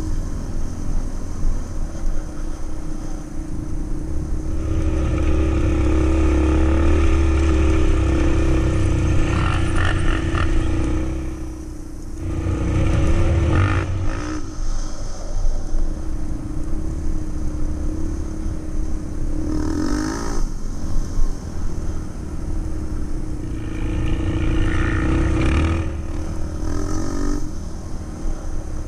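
Quad (ATV) engine running under way, heard from the machine itself, its revs climbing and dropping several times as the rider throttles along the rough track, with wind rumble on the microphone.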